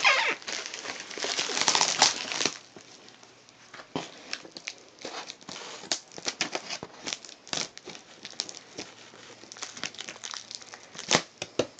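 Packaging crinkling and rustling as a parcel is unpacked by hand: a dense stretch of crinkling over the first couple of seconds, then scattered crackles and light taps.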